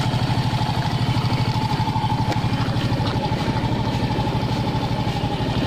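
Honda XRM125 motorcycle's single-cylinder four-stroke engine idling steadily with an even, rapid beat, running smoothly now that its failed voltage regulator has been replaced.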